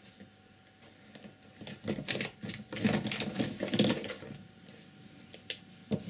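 Paint containers and palette being handled on the tabletop: a quick run of small clicks, taps and knocks lasting a few seconds, then a couple of single clicks.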